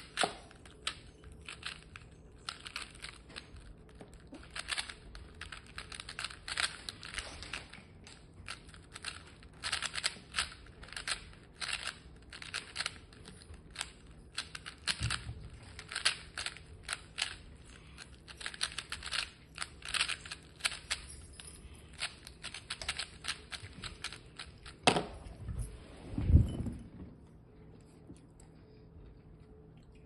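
GAN 12 ui smart speedcube being turned fast by hand: a rapid, uneven patter of plastic clicks and clacks as the layers turn, stopping about 27 seconds in. A couple of dull thumps sound just before the clicking ends.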